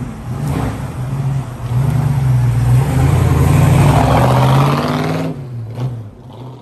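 1965 Mustang GT fastback's V8 engine running as the car drives slowly past close by, its exhaust note swelling as it nears and dropping off sharply about five seconds in.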